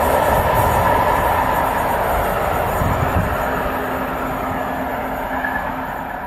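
Container freight train rolling away along the line, the rumble and rush of its wagon wheels on the rails fading steadily as the tail of the train recedes.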